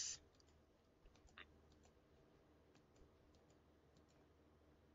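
Near silence with a few faint, irregularly spaced clicks of a computer mouse, one a little louder about a second and a half in.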